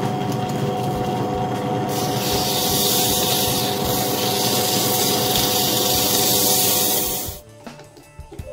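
Drill press spinning a wooden plane knob, running with a steady hum and whine. About two seconds in, sandpaper held against the turning knob adds a loud rushing hiss. Both stop abruptly about seven seconds in.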